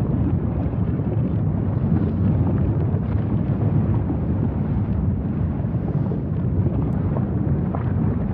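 Steady low rumble from the erupting volcano's lava field, mixed with wind buffeting the microphone.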